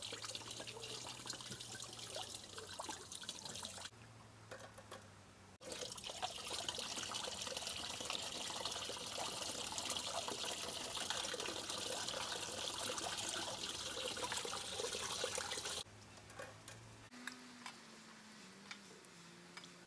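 Tap water running while crabs are rinsed by hand. The flow dies down about four seconds in, runs again a moment later, and stops near the end, leaving a few small clicks.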